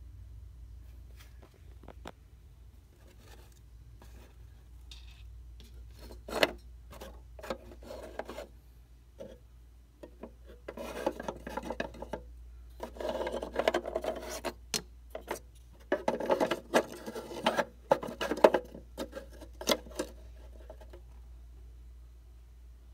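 Handling noise: bursts of rubbing and scraping with sharp clicks, mostly in the middle stretch, over a low steady hum.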